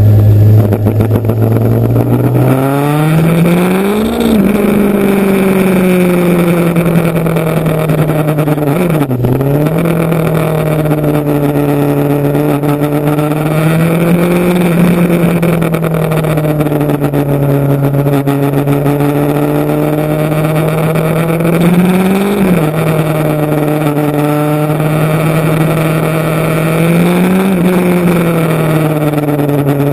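Motorcycle engine running while riding, its revs climbing in the first few seconds. After that it holds a fairly steady pitch, broken by a few brief rises and falls in engine pitch. A steady hiss runs underneath.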